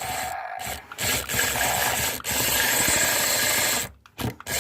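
Small radio-controlled toy car's electric motor and plastic gearbox whirring in runs of one to two seconds with short stops between, then a few short bursts near the end.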